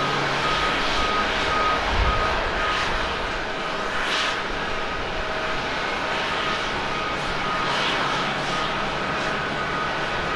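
Airbus A330-300 airliner's jet engines running as it rolls on the ground: a steady rushing noise with a thin whine held on one pitch, and a brief low rumble about two seconds in.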